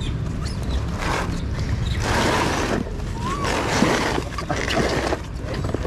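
Rustling and scraping of a cardboard box of apples being handled and pawed at by macaque monkeys, in long noisy stretches, with one short rising-and-falling squeak about three seconds in.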